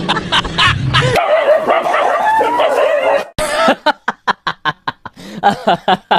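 A dog yipping and whimpering with a wavering, high-pitched cry. After a sudden cut about three seconds in, a fast run of short, evenly spaced calls follows, about four a second.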